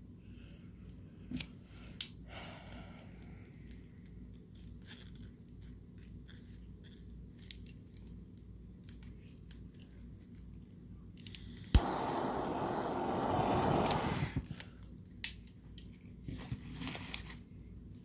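A handheld torch clicks alight about twelve seconds in and hisses steadily for about two and a half seconds, flame-treating freshly poured resin to pop air bubbles that have come to the surface. Small scattered clicks and taps from handling come before and after.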